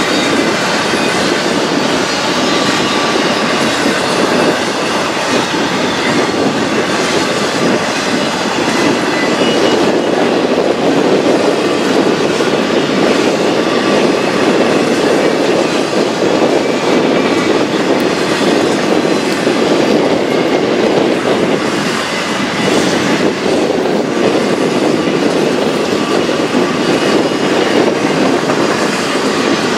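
Cars of a very long CN intermodal freight train rolling past: the steady rolling noise of steel wheels on rail.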